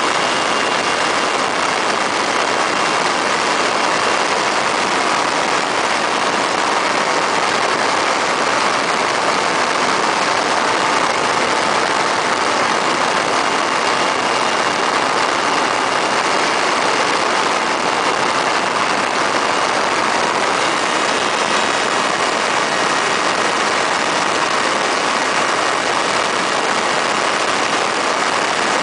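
Weedhopper ultralight's two-stroke engine and propeller droning steadily in flight, mixed with wind rushing past the open cockpit.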